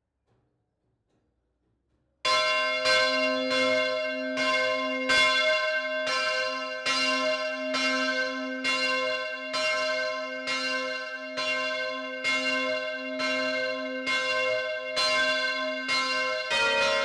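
A church bell ringing, its strikes coming in an even rhythm of about three every two seconds, each ringing on into the next. It starts suddenly about two seconds in, and near the end a second, lower-pitched bell joins.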